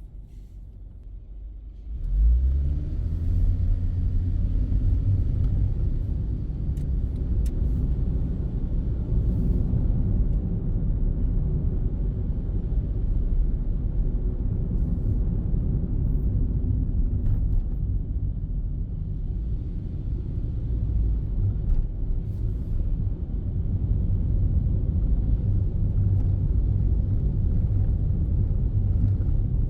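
Car pulling away about two seconds in, its engine note rising as it accelerates, then a steady low rumble of engine and road noise while driving.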